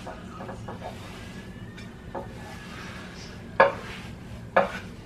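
Cast iron cookware being handled: rubbing and scraping, with a light knock and then two sharp knocks of cast iron about a second apart a little past the middle.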